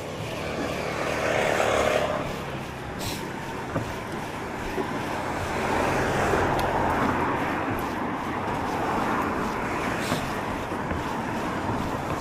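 Wind buffeting the microphone in gusts, swelling and easing a few times, with a few faint clicks.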